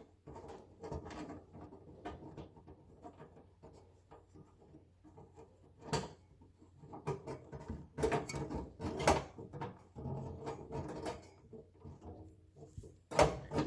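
Knocks and rattles of the sheet-metal fan bracket and screws being handled and fitted back into place inside a refrigerator, with a sharp knock about six seconds in, a cluster of clatter around eight to nine seconds and another near the end.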